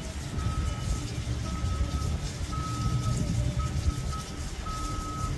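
An electronic beeper sounding about once a second, each beep about half a second long, over a low rumble.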